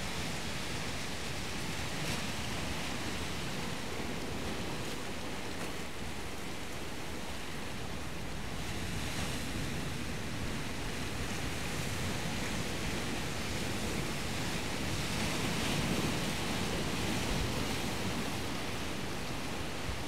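Surf washing steadily onto the shore, a constant rushing noise that swells a little about three-quarters of the way through.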